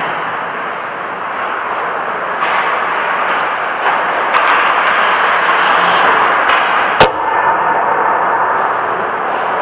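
Steady noise of a vehicle on the move, with one sharp knock about seven seconds in and a few faint clicks before it.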